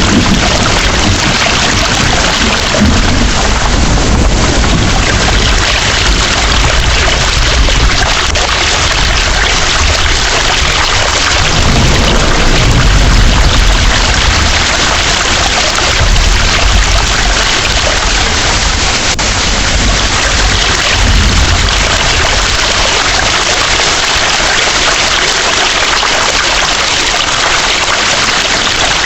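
Heavy rain pouring steadily, with low rolling thunder rumbling in and out several times.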